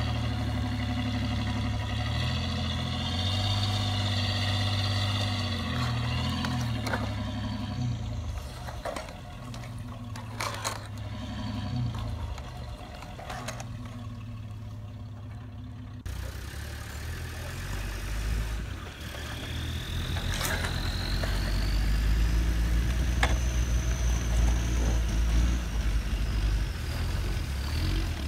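An engine running and revving up and down, standing in for a toy off-road Jeep. About halfway through it changes abruptly to a deeper, louder engine sound, with a faint high whine rising over it near the end.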